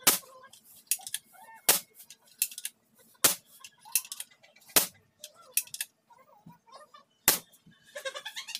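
A sharp metallic clack about once a second as the parts of a PCP air rifle's tube are worked by hand, likely pumping it up with air, with a burst of quicker rattling near the end.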